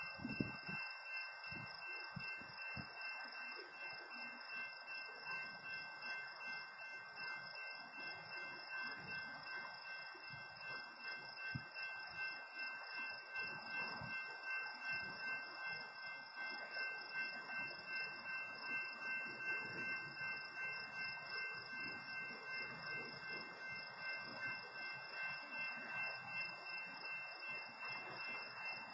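Railroad crossing warning bell ringing steadily at a blocked crossing, an even repeating ring about one to two times a second, over a low rumble.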